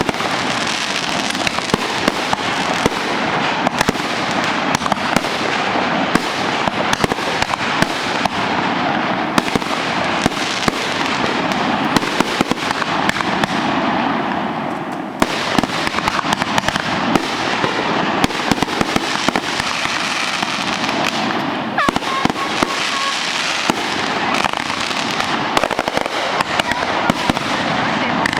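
Fireworks going off in a dense, continuous barrage of bangs and crackling, with a brief dip about halfway through before the volley picks up again.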